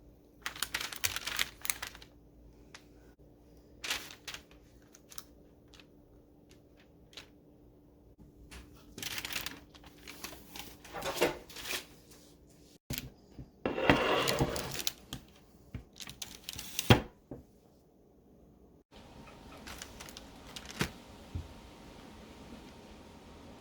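Kitchen handling noises: scattered clicks and taps with several bursts of rustling. The background changes abruptly twice where the clips are cut together.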